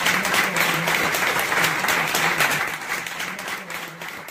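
A small audience applauding, many hands clapping together, fading away near the end.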